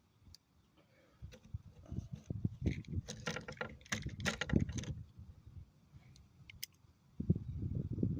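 Small metallic clicks and clinks of .22 Long Rifle cartridges being handled and loaded into a Heritage Rough Rider single-action revolver. A low rumble comes in near the end.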